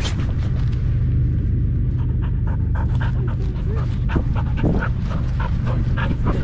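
A pit bull-type dog panting quickly and rhythmically, about three breaths a second, heard very close from a camera strapped to its harness, over a steady low rumble. The panting grows stronger about two seconds in.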